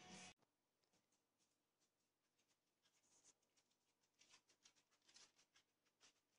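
Near silence: quiet room tone, with a few faint, short ticks and rustles in the second half.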